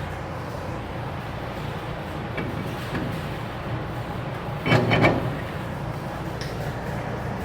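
A short two-part clatter about five seconds in, over a steady low background hum.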